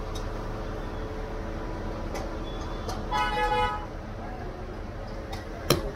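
Street traffic rumbling, with a vehicle horn honking once for about half a second a little past the middle. A sharp clack near the end is the loudest sound.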